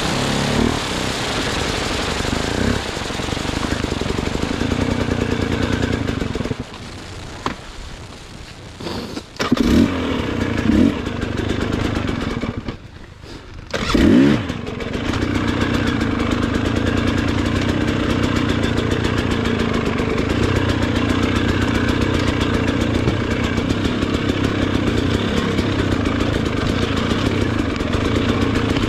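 Off-road motorcycle engine running steadily under throttle while ridden. The engine drops back about seven seconds in and again about twelve seconds in, each time picking up with short sharp revs before running steadily again.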